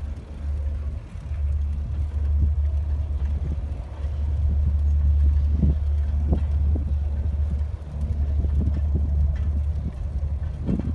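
Wind rumbling on the microphone of a moving bicycle, with a few light knocks and rattles from the bike.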